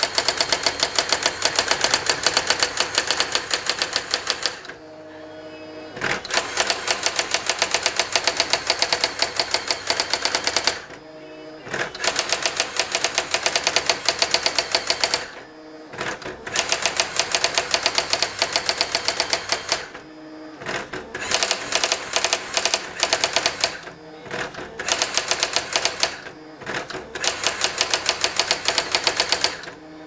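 Brother ZX-30 daisy-wheel electronic typewriter printing automatically in fast runs of sharp print strikes, about a dozen a second. The runs stop several times for a second or so between lines, with a low steady motor hum in some of the pauses.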